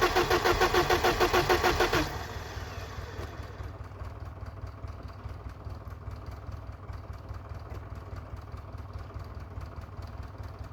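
BMW E34's starter cranking the engine in quick, even pulses, about five a second, without it catching. The cranking cuts off about two seconds in, leaving a quieter steady low hum.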